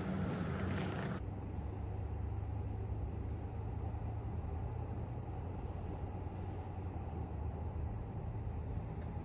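Steady high-pitched chirring of insects, over a low steady rumble. The background changes abruptly about a second in, from a brighter, noisier sound to the insect chorus.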